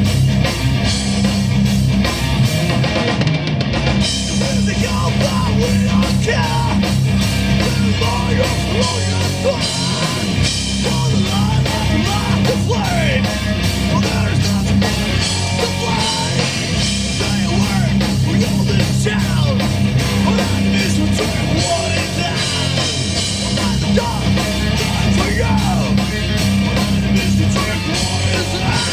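Live heavy rock band playing a loud, distorted song.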